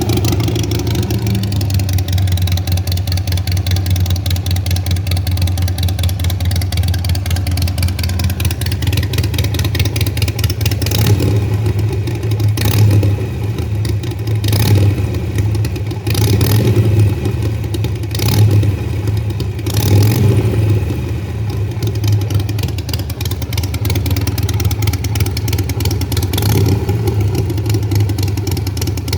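Motorcycle engine idling through a new stainless steel 2-into-1 exhaust, with the throttle blipped several times from about a third of the way in. A loud exhaust note.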